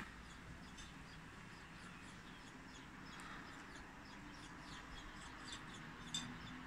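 Small birds chirping faintly, short high notes repeated and scattered throughout, over a low steady background hum, with one louder sharp sound near the end.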